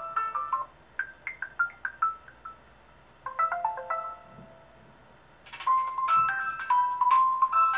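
Nokia Lumia 1020 ringtone previews playing one after another from the phone's speaker: several short melodies of quick notes, each cut off after a second or two. After a pause of about a second, a fuller, brighter ringtone starts about five and a half seconds in.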